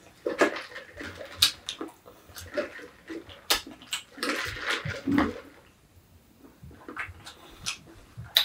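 Close mouth sounds of speed-eating: soda sucked noisily through a straw and swallowed around a full mouth, in irregular bursts. They ease off after about five seconds.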